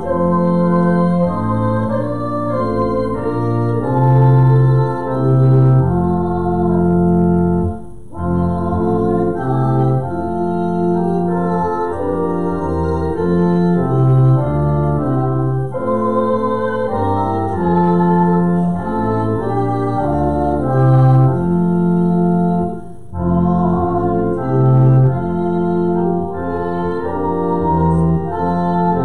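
Two-manual electronic church organ playing a slow hymn in full sustained chords over a strong bass line, with short breaks between phrases about 8 and 23 seconds in.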